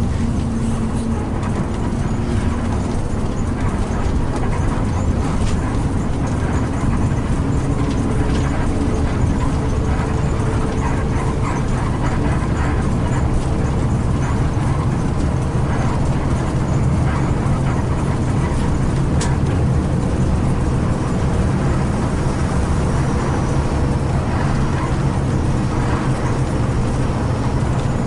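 Steady engine drone and road rumble of an intercity bus driving.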